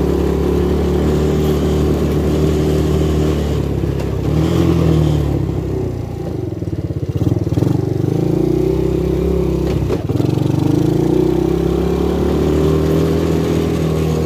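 250cc ATV engine running under way, its pitch rising and falling several times as the throttle is opened and eased off.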